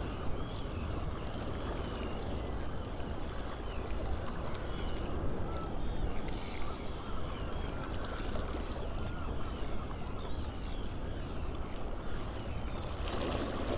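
Steady wind rumble on the microphone over open sea water, with faint bird calls now and then and a few light clicks near the end.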